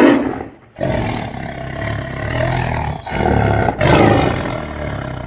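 Tiger roar sound effect: a brief falling blast at the start, then two long, rough roars of about two seconds each, cutting off suddenly at the end.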